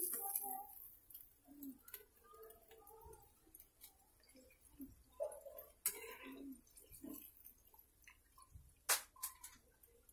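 A ladle knocking against a cooking pot a few times, faint, with soft scattered sounds between; two of the sharpest knocks come close together near the end.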